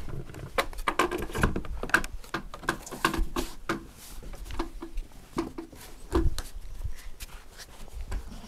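Irregular wooden knocks and footfalls of a person climbing a wooden ladder and clambering onto Siberian cedar log beams, the loudest thump about six seconds in.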